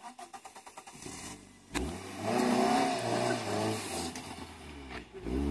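Toyota Avensis sedan's engine turned over by the starter with rapid even ticking, catching about a second and a half in. It then revs hard with a wavering, rising and falling pitch, eases off, and revs again near the end: the car is stuck in deep sand.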